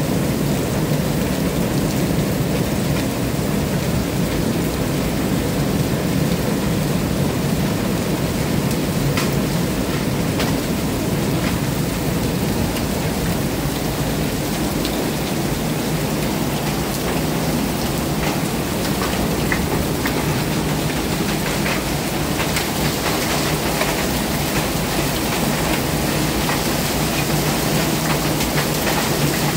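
Rain falling steadily on a surface, with scattered sharp ticks of drops striking and a low rumble of thunder underneath.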